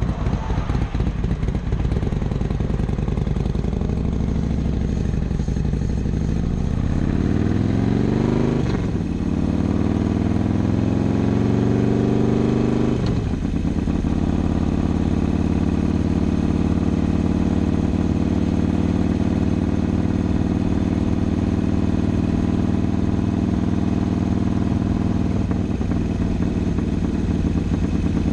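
BMW S1000R inline-four motorcycle engine accelerating under way: the pitch rises, drops at an upshift about 8.5 seconds in, rises again, drops at a second upshift about 13 seconds in, then holds steady at a cruise.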